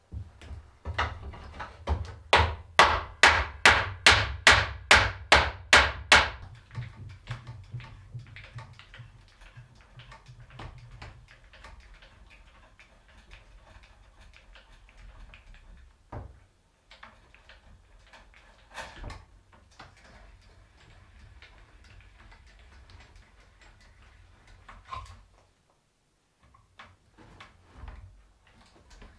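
Hammer blows on a chestnut-wood table frame: about a dozen sharp strikes, two or three a second, over the first six seconds. After that comes a quieter crunching as a hand brace bores into the wooden rail, with a few louder single knocks.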